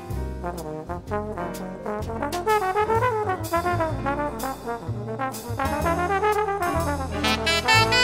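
Small-group jazz recording: a trombone plays a flowing solo line in rising and falling phrases over bass and drums.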